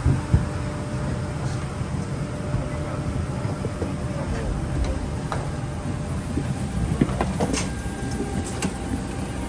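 Steady low hum inside a parked airliner's cabin, with a few sharp knocks and clicks as passengers walk out along the aisle.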